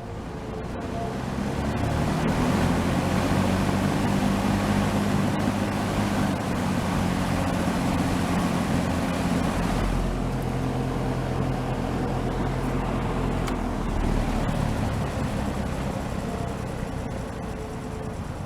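JCPenney Model 9705 box fan running: the rush of air and the hum of its motor build up over the first two seconds as the blades spin up, then hold steady. The hum changes about ten and again about fourteen seconds in as the fan is switched between speeds, and the sound eases off slowly toward the end.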